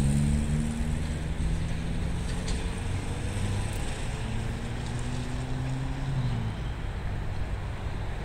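Low, steady vehicle rumble with a hum that fades out about six seconds in, and wind on the microphone.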